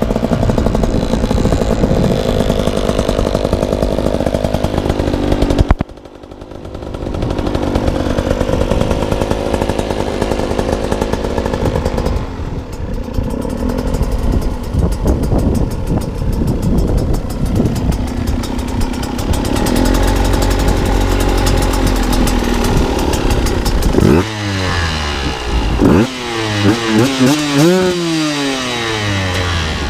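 KTM 200 XC-W's two-stroke single-cylinder engine running hard, dropping off suddenly about six seconds in and building back up. Near the end comes a series of quick throttle blips, the pitch rising and falling.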